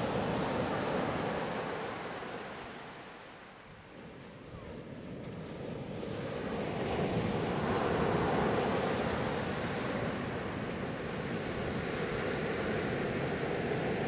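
Sea waves breaking and washing up a beach. The wash fades to a lull about three seconds in, then the next breakers build and are loudest about eight seconds in.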